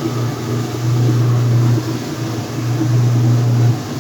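Whirlpool washing machine running with a steady low hum at its drain-and-spin stage; the hum swells and dips slightly but holds one pitch.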